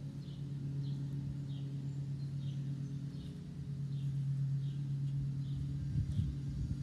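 A steady low hum throughout, with a short high chirp repeated evenly, about three every two seconds, like a small bird calling over and over.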